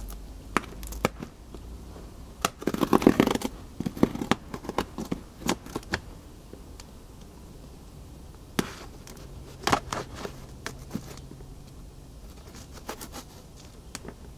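A knife cutting and scraping along the packing tape of a cardboard box, with scattered taps, scrapes and paper rustles; the loudest is a rasping tear about three seconds in.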